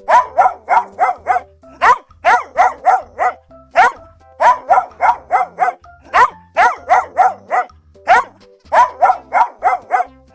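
A dog barking in quick runs of about five barks, each run followed by one separate bark, the pattern repeating evenly about every two seconds.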